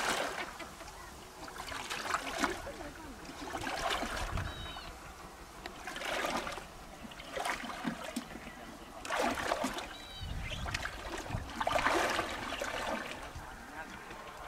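Shallow river water sloshing and splashing as a person wades through it, with a splash about every one to two seconds from each stride or from a hand dipping into the water.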